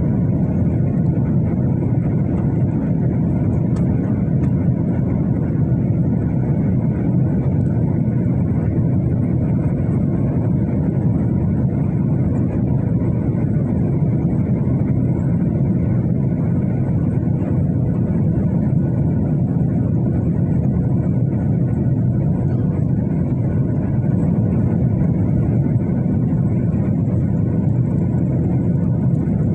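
Airplane noise, engines and rushing air, running as a steady loud drone as the plane comes in to land.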